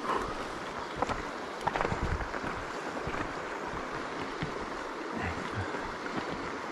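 Shallow river running over a stony riffle: a steady rushing of water, with wind buffeting the microphone and a few faint knocks.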